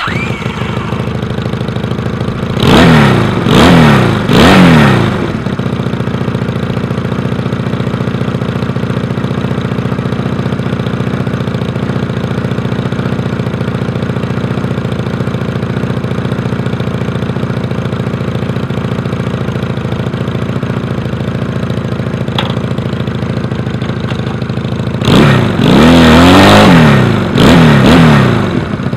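Honda Rebel 250's 234cc twin-cylinder engine firing up and settling into a steady idle. About three seconds in there are three quick throttle blips, and near the end three more revs.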